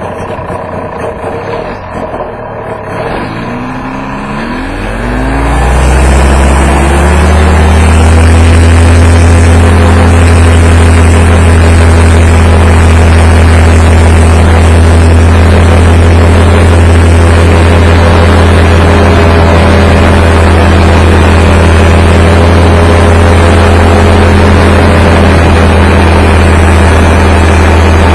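Paramotor engine and propeller revving up, rising in pitch from about two to six seconds in, then running loud and steady at high throttle.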